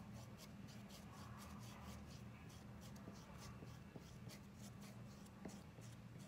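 Small plastic squeegee scraping chalk paste across a silk-screen stencil on a wooden board: faint quick strokes, about two to three a second, over a low steady hum.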